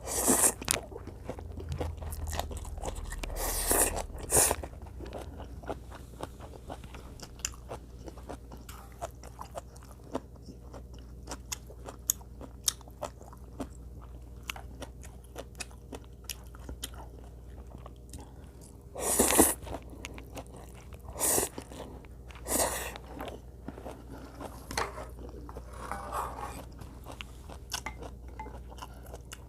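Close-miked eating: continual chewing with crunching bites, and several louder bursts of biting, the loudest about 19 seconds in.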